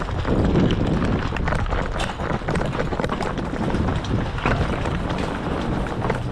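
Quick footsteps of a player running over the ground, sharp irregular steps over a steady low rumble.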